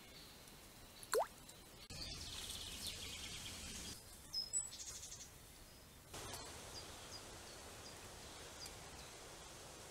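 Outdoor pond ambience: a steady hiss with scattered short bird chirps and a brief rising whistle about a second in. The background changes abruptly twice.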